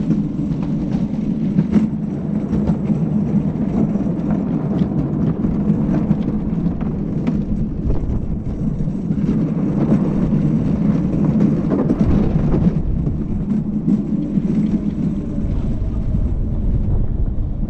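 Gravity luge cart rolling fast down a concrete track: a steady rumble of its wheels on the surface mixed with wind noise on the camera, with a few light knocks from bumps in the track.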